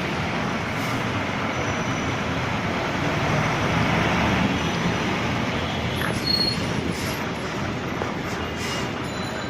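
Continuous heavy engine and traffic noise, steady with no distinct impacts, swelling slightly around the middle.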